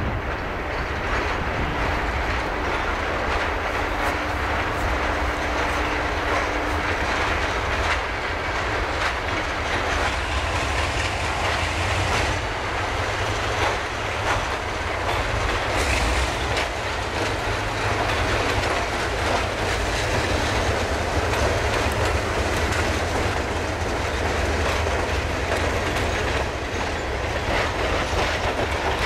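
Minnesota Commercial diesel locomotive passing close under heavy throttle, its engine running with a deep steady sound. The freight cars behind it roll by with the wheels clicking over rail joints.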